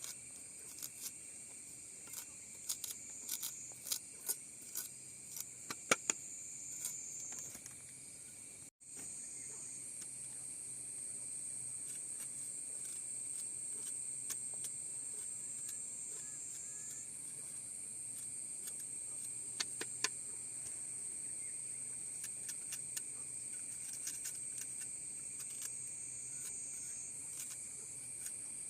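A steady, high-pitched chorus of insects buzzing, with scattered sharp clicks that are thickest in the first few seconds and again around two-thirds of the way through. The sound cuts out for a moment about nine seconds in.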